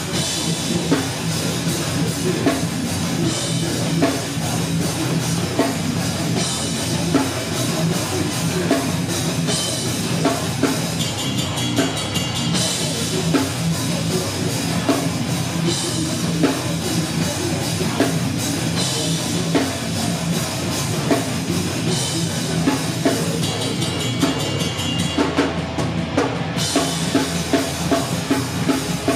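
A heavy band playing loud live music, led by a pounding drum kit with bass drum, snare and crashing cymbals.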